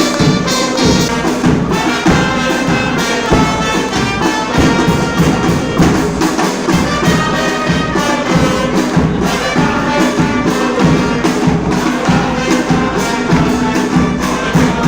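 Live brass band playing an upbeat tune, trumpets and trombones over a steady percussion beat.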